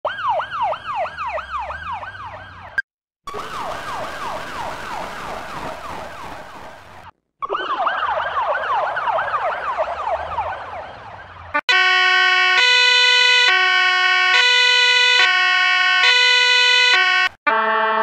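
Ambulance siren in a fast yelp, its pitch sweeping up and down about three times a second, cut off twice and played once with a hiss over it. Near the end it gives way to a loud two-note tone that alternates between a high and a low held pitch about every second, in the manner of a hi-lo siren.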